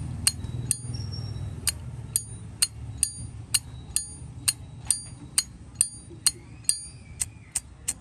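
A Zippo lighter's lid being flicked open and snapped shut again and again, a sharp metallic click about twice a second. Many of the clicks ring briefly with a high chime.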